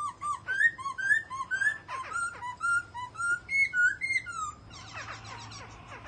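Caged songbird singing a fast run of short, clear whistled notes, each swooping up and down, about three notes a second, fading out near the end.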